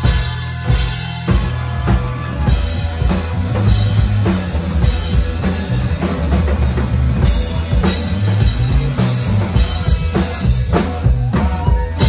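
Live rock band playing loud: a drum kit with bass drum and snare hits over electric bass and electric guitar. The drumming gets busier about two and a half seconds in.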